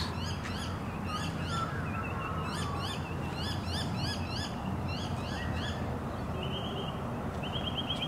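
Noisy miners calling at dawn: many short, sharp, repeated high calls from several birds, with a quick rapid-fire run of notes near the end.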